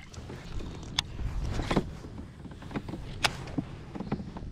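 A few sharp clicks and knocks over a steady low rumble: fishing gear being handled aboard a kayak.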